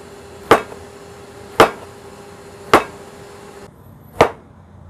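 Cleaver slicing through a block of homemade tempeh and striking the cutting board: four sharp knocks about a second apart.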